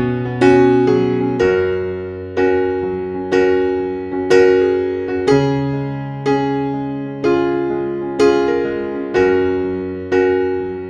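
Background music: slow electric piano chords struck about once a second, each fading before the next, over a held bass note.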